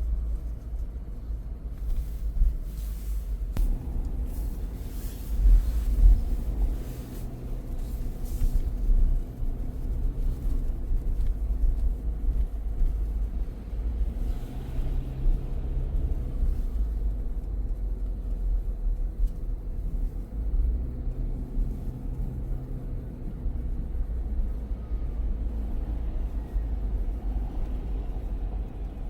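A car's steady low road rumble heard from inside the cabin while driving, with engine hum rising and fading at times.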